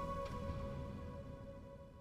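Background music fading out: a sustained chord of held tones dying away steadily.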